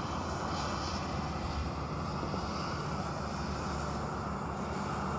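Steady rush of muddy floodwater running in a shallow sheet across open ground, mixed with a low wind rumble on the microphone.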